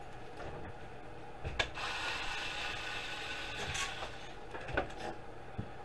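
Screwdriver turning screws out of a DVD drive's sheet-metal chassis: scraping, ratchet-like clicking with a few sharp clicks and knocks, the loudest about a second and a half in.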